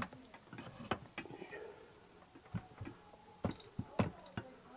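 Irregular sharp clicks and light knocks from hands working parts on a motorcycle frame, the loudest about one, three and a half and four seconds in. Faint raised voices of a distant argument sound between them.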